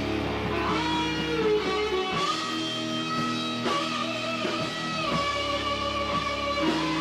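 Rock band playing live in a basement: electric guitar chords held and ringing, changing about every one and a half seconds.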